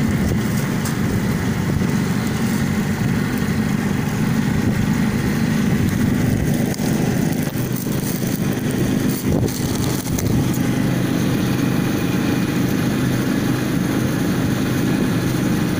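Motorcycle engine of a three-wheeled passenger taxi running steadily as it drives along the road, heard from the passenger seat with road and wind noise. The engine note shifts slightly about ten seconds in.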